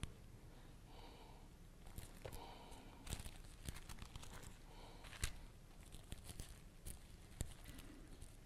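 Faint rustling and crinkling of thin Bible pages being turned to find a passage, with scattered soft clicks.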